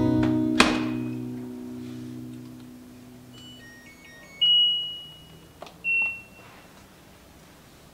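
LG DIOS dishwasher door latching shut with a sharp click, then its control panel beeping as the buttons are pressed and the cycle is set. There are a few faint short beeps, a louder single beep about four and a half seconds in, and another about a second later.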